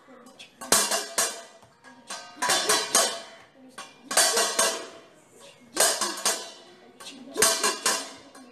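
A steel plate drummed as a percussion instrument: short bursts of quick, ringing metallic strikes, about one burst every second and a half.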